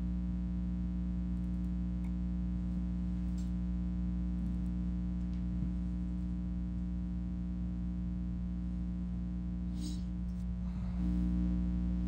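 Steady electrical mains hum in the recording: a low buzz with several even overtones, growing a little louder about eleven seconds in.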